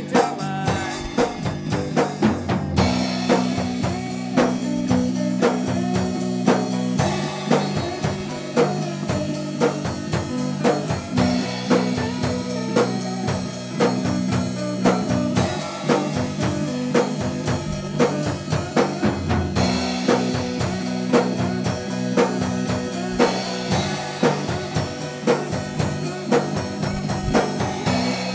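Rock band playing an instrumental passage: drum kit keeping a steady beat under electric guitar.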